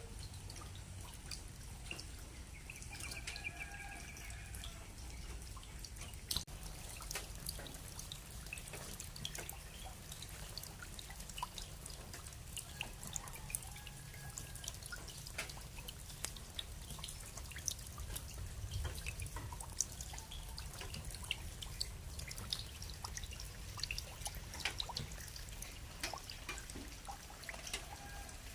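Rain dripping: many scattered drops tapping at an irregular pace over a low steady rumble. A brief pitched call comes about three seconds in, with fainter ones later.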